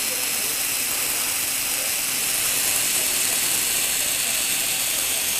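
Lego Technic gearbox driven by a Lego Power Functions electric motor, running steadily: the motor whirs and the plastic gears mesh, growing slightly louder about two seconds in.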